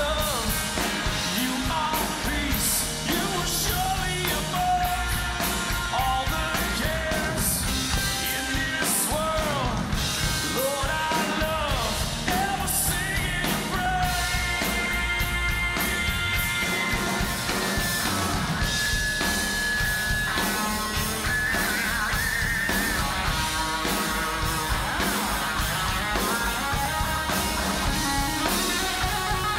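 Live rock band playing: electric guitars, bass guitar and drum kit, with a voice singing over them.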